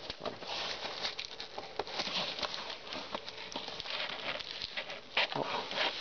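Cardboard shipping box being worked open by hand: a continuous scraping and rustling of cardboard under the fingers, with scattered small clicks as the taped seams are pried apart, the sharpest a little after five seconds in.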